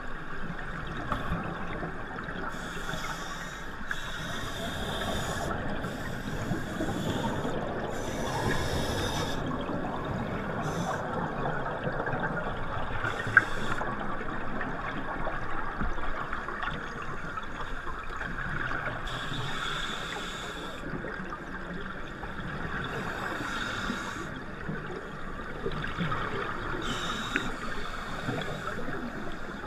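Scuba divers breathing through their regulators underwater: exhaled bubbles gurgle and rush in bursts every few seconds over a steady muffled hiss, heard through a waterproof action-camera housing.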